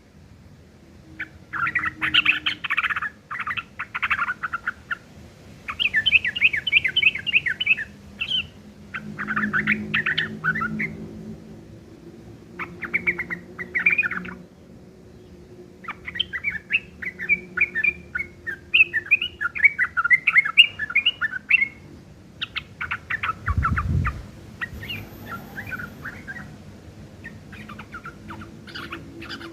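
Yellow-vented bulbul (trucukan) singing a rough, rapid chattering song in bouts of one to three seconds with short pauses between them, its phrases filled with mimicry of a long-tailed shrike. A brief low thud sounds about four-fifths of the way through.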